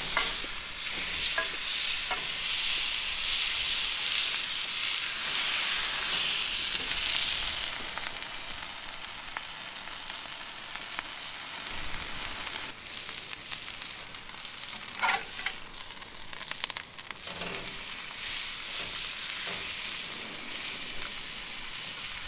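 Rib-eye steak sizzling hard on a hot cast-iron grill plate as it is turned, loudest over the first several seconds and then settling to a steadier, softer sizzle. A few clicks and scrapes of a metal spatula come near the start and again about halfway through.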